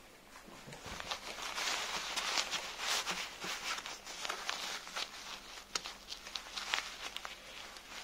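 Hands rustling and rubbing the long shaggy synthetic fur and fabric of an inflatable costume, starting about a second in, with scattered light clicks and taps from the wire fan guard being handled.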